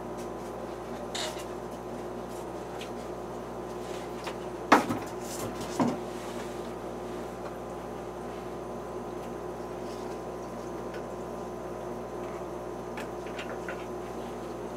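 Aquarium equipment humming steadily, with water trickling and bubbling. Two sharp knocks about five and six seconds in, the first the louder.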